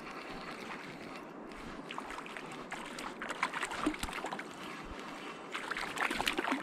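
Hooked trout splashing and thrashing at the surface while being played on a spinning rod: a run of quick wet splashes from about two seconds in, loudest in bursts in the second half, over a steady hiss.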